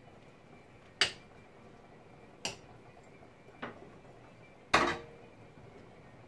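Four sharp metallic clinks of kitchenware against a steel cooking pot, spaced a second or so apart, the last the loudest with the longest ring.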